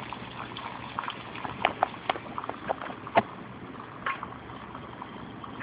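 Water at a hard rolling boil in an aluminium Heineken-can pot over an open top-jet alcohol stove: a steady hiss with sharp pops and ticks, several a second, the loudest about three seconds in.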